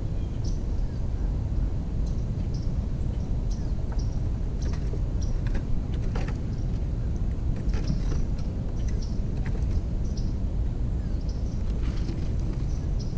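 Backyard ambience: a steady low rumble with many short, high bird chirps and calls scattered through it.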